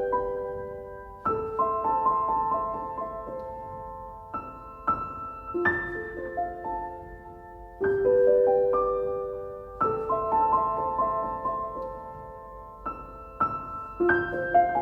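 Soft, slow piano music: chords and single notes struck every second or so and left to ring out.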